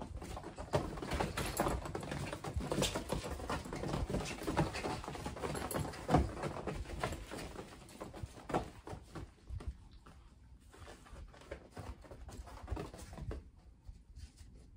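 Kittens scampering and pouncing on the padded fabric floor of a pop-up playpen: a busy patter of small paw thumps and scrabbling, denser in the first half and thinning out later, with one sharper knock about six seconds in.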